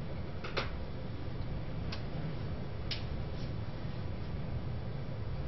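Classroom room tone: a steady low hum with a few sharp clicks, two close together about half a second in, then one at about two seconds and one near three seconds.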